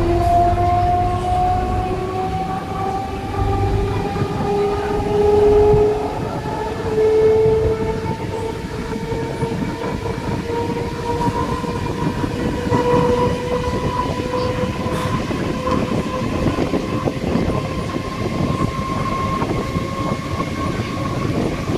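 Electric local train's motor coach accelerating: the traction motors' whine climbs steadily in pitch, levelling off near the end, over the rattle of wheels on the rails.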